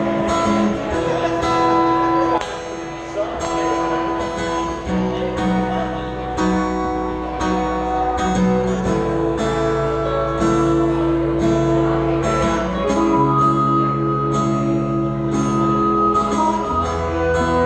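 Instrumental intro of a song: an acoustic guitar strummed in a steady rhythm, with a harmonica playing long held notes over it.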